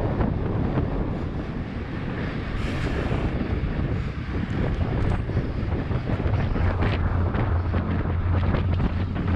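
Wind rushing and buffeting over a camera microphone while cycling at race speed, with a low rumble that gets heavier about two-thirds of the way through.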